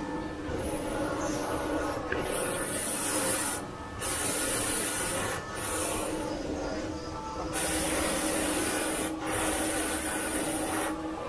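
Fully automatic crystal-making machine working glass almond pendants: a loud, harsh hiss of glass being ground, broken by several short pauses, over a steady low hum.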